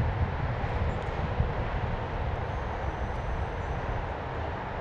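Wind buffeting the microphone: a steady, low rumbling noise with no distinct events.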